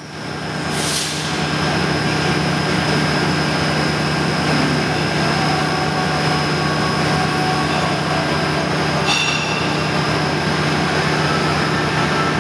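Heavy-duty chain-driven live roller conveyor running: a steady mechanical hum and whir over a constant low drone. A brief hiss comes about a second in, and a short metallic clink about nine seconds in.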